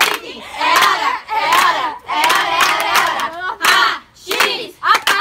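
A group of girls shouting and cheering together, with hand clapping, loudest in the second half.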